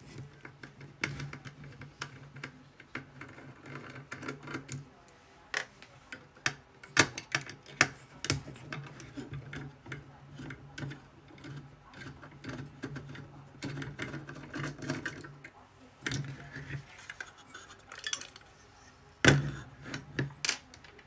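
Irregular small metallic clicks and taps as a screwdriver backs screws out of a circuit board's metal chassis and the board and screws are handled, over a faint steady low hum.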